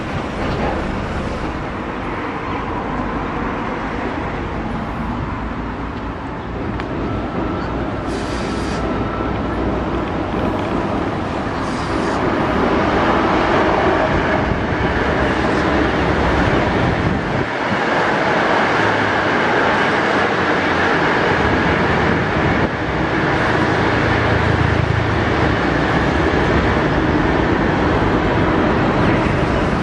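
A passenger train of 25G coaches hauled by an HXD1D electric locomotive passing on the line, its wheels running on the rails in a steady dense rumble. It grows louder about halfway through as the train comes closer and stays loud to the end.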